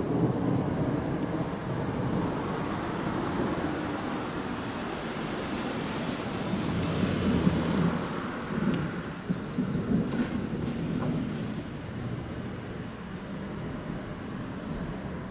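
Long, rolling rumble of thunder that swells and ebbs and slowly fades. A car passes about seven seconds in.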